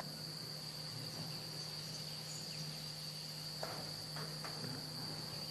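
An insect trilling in one steady, unbroken high note, over a faint low hum, with a few faint clicks near the middle.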